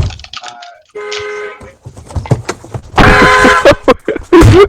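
Car alarm sounding its horn in loud blasts over a Discord voice call, two clear blasts about a second and three seconds in, with a voice shouting over the later one.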